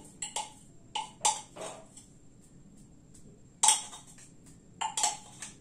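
Kitchen knife scraping and tapping against a glass bowl: a series of sharp clinks and scrapes, with the loudest one about two-thirds of the way through.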